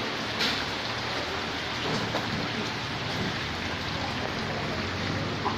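Rain pattering steadily on a shallow garden water channel, a dense, even hiss of drops striking the water.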